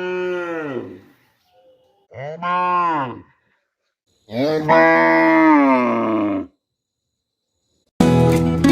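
A cow mooing three times: two short moos, then a longer, louder one, each rising and then falling in pitch. Guitar music cuts in near the end.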